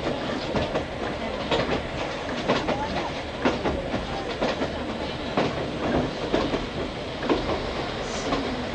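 Running noise heard from inside an old-type JNR passenger coach (Suhayuni 62 10) on the move behind two DE10 diesel locomotives: a steady rumble with frequent irregular clicks and knocks from the wheels over the rail joints.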